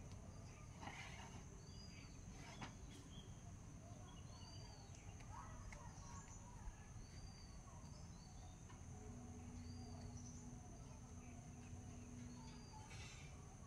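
Near silence: a soft high chirp repeating about every second and a half over faint room tone, with a few light scrapes of a metal spatula in an aluminium wok.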